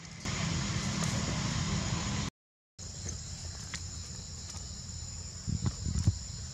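Rustling and bumping as a young macaque clambers over the person holding the microphone, with a few low knocks near the end, over a steady high drone of insects. The sound cuts out for about half a second a little over two seconds in.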